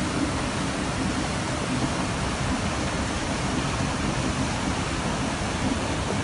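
Flash floodwater rushing past as a steady, unbroken noise with no distinct events.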